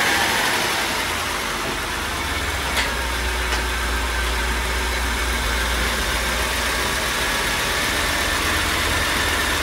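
Mercedes 500SEC's M117 five-litre V8 idling steadily with the hood open, freshly started after a valve cover gasket and camshaft oiler job. Two light clicks come about three seconds in.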